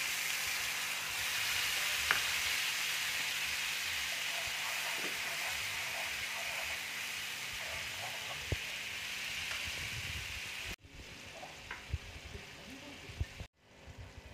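A watery paste of chili and turmeric powder sizzling loudly in hot oil with fried cumin seeds in a frying pan, stirred with a steel spatula that knocks against the pan now and then. The sizzle drops sharply about eleven seconds in.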